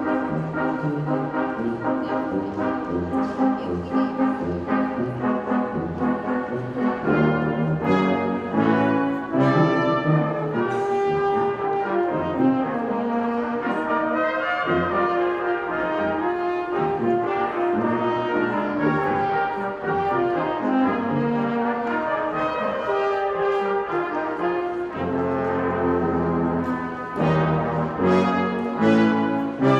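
Brass ensemble playing a piece of music, several parts sounding together in sustained chords and moving lines.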